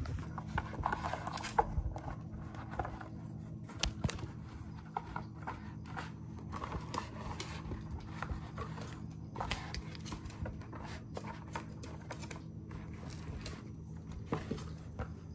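A kitten at play: light scratching and scraping of claws, with scattered small clicks and taps and a few sharper ones, over a steady low hum.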